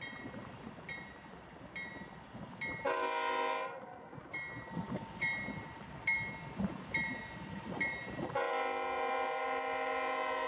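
CSX diesel freight locomotives approaching with engine rumble. The multi-note air horn gives a short blast about three seconds in and a long blast from about eight seconds on, over a bell dinging a little more than once a second.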